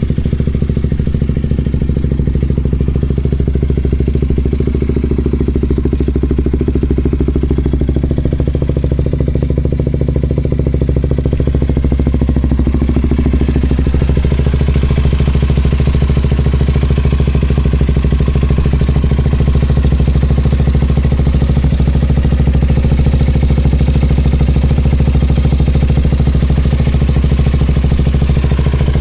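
KTM Duke 200's single-cylinder four-stroke engine idling steadily through an LCI titanium aftermarket silencer with its inner baffle removed.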